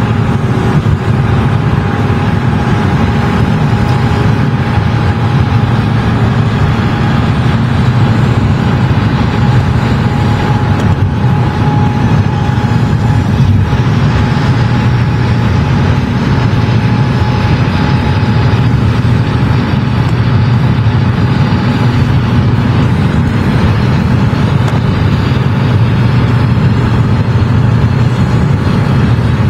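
Vehicle driving steadily: constant road and engine noise that holds the same level throughout, with a faint steady whine above it.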